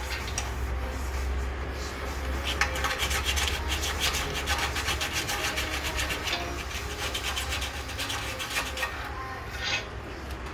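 Rapid, uneven scraping strokes from hand-tool work on the brake assembly, over a steady low hum.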